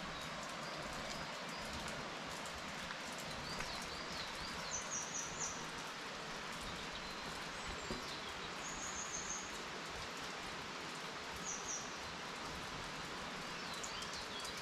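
Steady hiss of rain in a forest, with fine raindrop ticks. Small songbirds call over it: groups of high chirps, and three short, very high trills spread through the middle.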